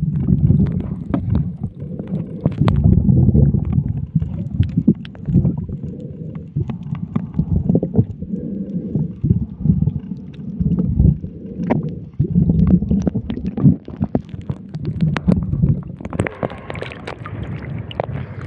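Muffled underwater rumbling and gurgling picked up by a submerged action camera while snorkelling over a reef, in irregular surges with scattered clicks and knocks from water moving against the housing. Near the end the sound turns brighter and splashier as the camera breaks the surface.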